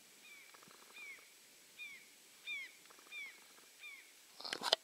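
Flock of geese calling at a distance: short, high, falling calls repeated roughly every half second to second. A brief rustle with a sharp click near the end.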